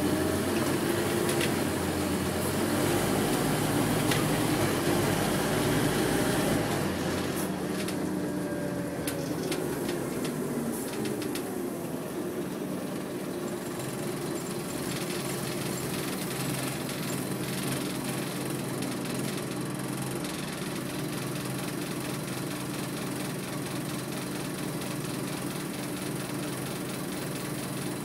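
Scania OmniDekka double-decker bus heard from inside the passenger saloon: the diesel engine runs louder for the first seven seconds or so, then drops back to a steady idle.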